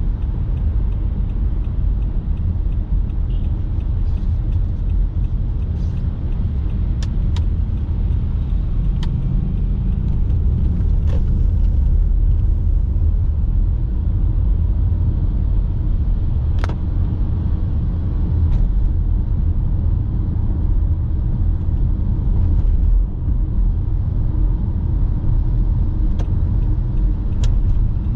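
Car driving: a steady low rumble of engine and road noise, with scattered sharp clicks now and then.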